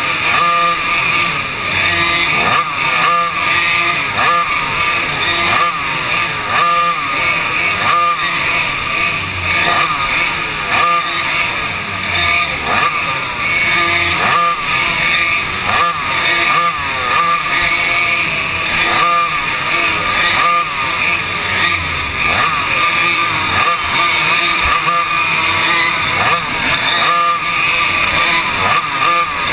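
Yamaha KT100 two-stroke kart engines racing flat out, heard from on board a kart running nose to tail with another. The pitch keeps rising and dropping as the engines rev down into the turns and wind back up out of them.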